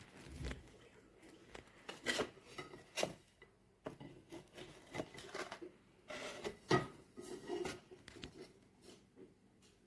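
Irregular handling noises: scattered sharp knocks and clicks with rubbing and scraping between them, the loudest about two, three and nearly seven seconds in.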